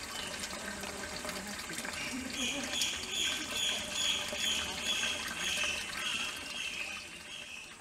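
A high-pitched animal call pulsing evenly about twice a second, starting about two seconds in and stopping near the end, over a steady high hiss and faint distant voices.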